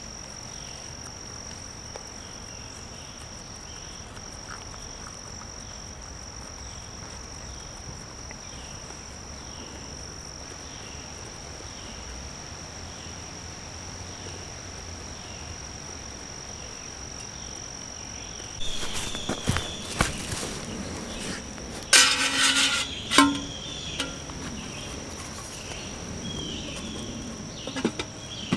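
Insects singing: one steady high buzzing trill with a slower chirp repeating under it about once or twice a second. About two-thirds of the way in, a few seconds of knocks and a short loud clatter from gear being handled.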